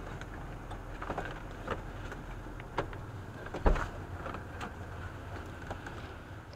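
Vehicle cab noise as a dashcam picks it up: a steady low engine hum under an even hiss, with scattered small clicks and knocks and one louder thump about three and a half seconds in.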